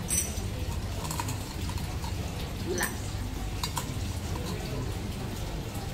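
A teaspoon clinking several times against a small glass tea cup as tea is stirred, over a steady low background hum.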